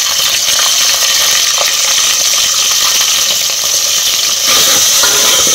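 Chopped onions frying in hot oil with a tempering of cumin, mustard seeds, dried chillies and garlic paste: a loud, steady sizzle with a few faint clicks of stirring.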